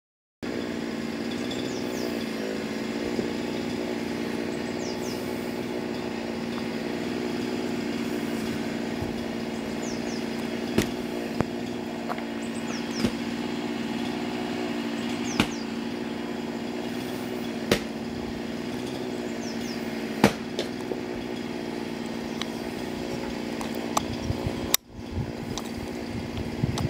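A small engine runs steadily at one pitch in the background. Sharp metallic clicks sound every couple of seconds, from the parts of a removed diesel-engine governor being handled.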